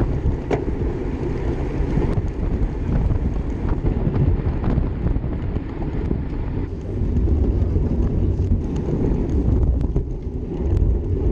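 Wind buffeting the microphone of a camera riding in a bunch of road-race cyclists: a steady, loud, low rumble with a few short clicks. The rumble changes character about two-thirds of the way through.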